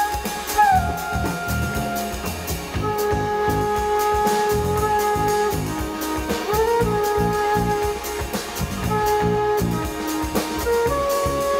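Live jazz-funk band: a flute holds long notes, sliding up into several of them, over a steady drum groove with electric bass and keyboards.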